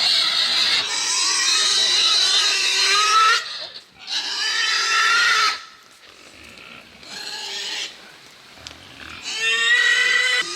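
Pigs squealing loudly as they are caught and handled: two long, high-pitched screams, a quieter stretch, then a shorter squeal near the end.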